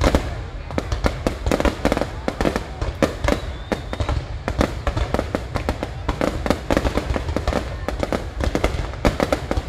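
Fireworks display: a dense, unbroken run of bangs and crackles, several a second, over a steady low rumble.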